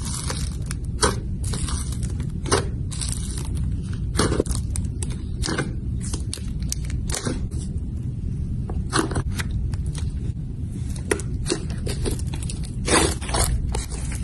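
Slime being pressed, stretched and folded by hand. It gives irregular crackles, pops and sharp clicks over a steady low rumble.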